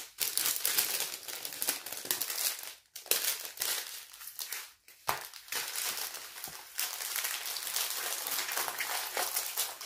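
Plastic packaging crinkling and rustling as it is handled: small plastic bags of diamond-painting drills and the canvas's plastic cover. There are two brief pauses, about three and five seconds in.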